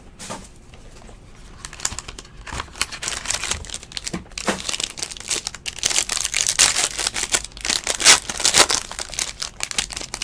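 Foil trading-card pack being torn open and its wrapper crinkled by hand, crackling louder from about two seconds in.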